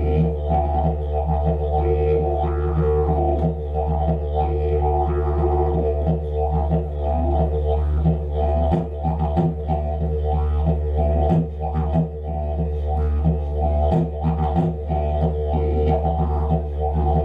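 Didgeridoo played live: a low drone held without a break, with rhythmic pulses and shifting overtones above it.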